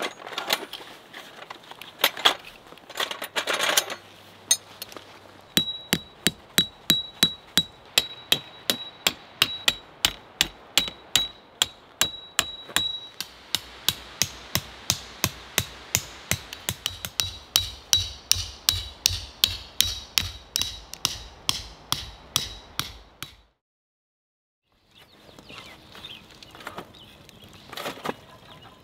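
Snow Peak Copper Head Peg Hammer striking a tent peg over and over, about two to three blows a second, each with a short metallic ring. After a brief silence near the end come a few light clinks of charcoal in a fire grill.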